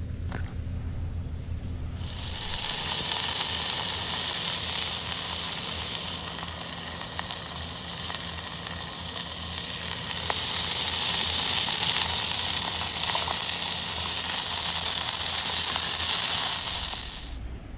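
Meat frying in a stainless steel camp pot: a steady sizzling hiss while it is stirred with chopsticks, with a few small clicks. The sizzle starts abruptly about two seconds in and cuts off just before the end; before it there is only a low rumble.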